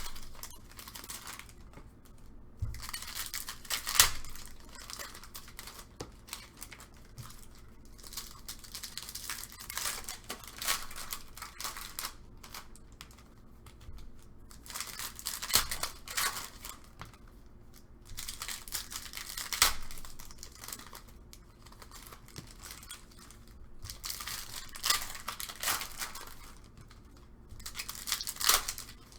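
Plastic trading card pack wrappers being torn open and crinkled by hand, in repeated rustling bursts with a few sharp taps.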